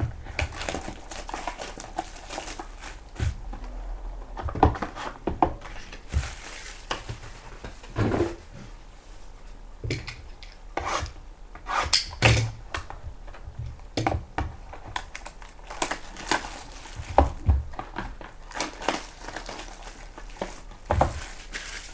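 Small cardboard boxes of Topps Triple Threads baseball cards being handled and set down on a table: irregular knocks and short rustles.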